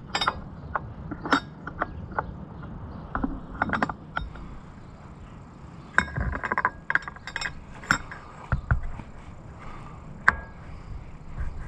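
Irregular metallic clinks and taps of a steel hydraulic hose fitting and tools being handled as the line is worked onto the tractor's hydraulic valve. A cluster of clinks comes about halfway through and one sharp clink near the end.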